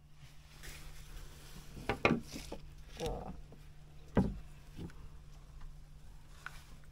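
Several dull knocks and thumps of handling on a boat, the loudest about two seconds in and about four seconds in, over a steady low hum.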